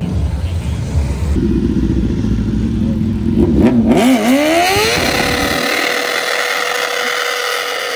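Sport motorcycle engine revving hard, its pitch sweeping sharply up and down about three to four seconds in, during a burnout. A steady hiss from the spinning rear tyre joins from about four seconds in, while the engine's low rumble falls away near the end.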